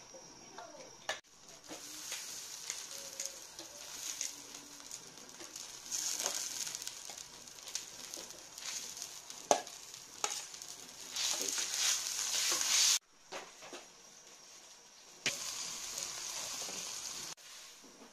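Wok on a gas burner sizzling and hissing, with sharp clinks of a metal spoon against a steel bowl as pieces of snail meat are scooped into it. The hiss cuts off abruptly about two-thirds of the way through, then returns briefly.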